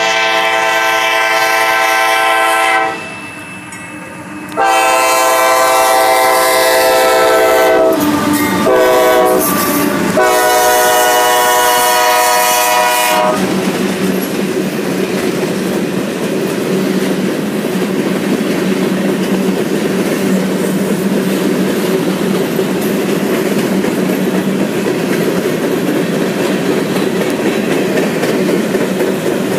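Lead CSX locomotive's multi-chime air horn sounding for a grade crossing: two long blasts, short blasts, then a final long blast, the standard crossing warning. The freight train's cars then roll past in a steady rumble, the wheels clacking over rail joints.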